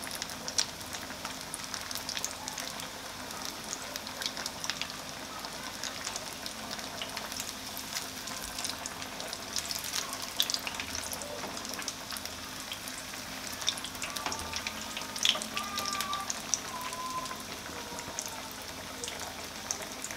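Breadcrumbed chicken cutlets frying in hot oil in a kadai at medium heat: a steady sizzle with frequent small crackles and pops.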